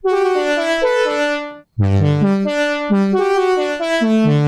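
A synth lead patch (Android Seeker) from EastWest's Forbidden Planet virtual instrument, played dry with its effects switched off. Chords over a low bass note are played in two phrases, broken by a clean stop about one and a half seconds in. The notes cut off without any reverb tail.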